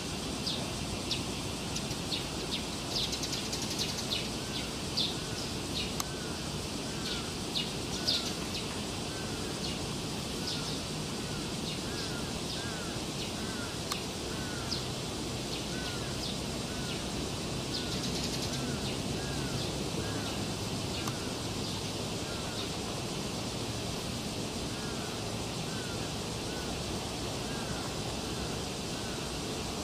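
A steady background hiss with a long run of short, arched animal calls, one or two a second, and sharp high chirps clustered in the first ten seconds and again briefly around eighteen seconds.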